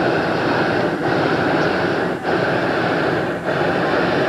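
Hot air balloon's propane burner firing in a run of long blasts, each a second or more, with brief breaks between them.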